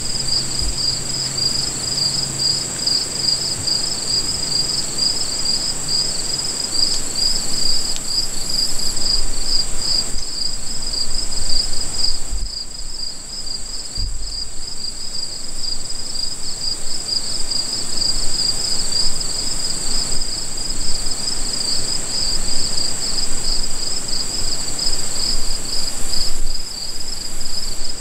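Late-summer evening insect chorus: a steady high trill layered over a second, slightly lower trill that pulses rapidly and evenly.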